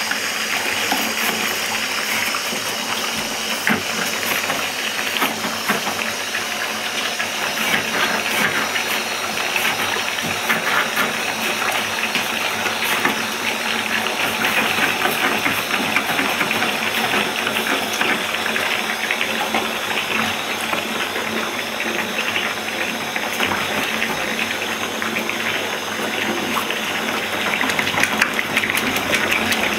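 Bathtub tap running steadily, water pouring and splashing into shallow foamy water in the tub, with a dense fizz of small crackles.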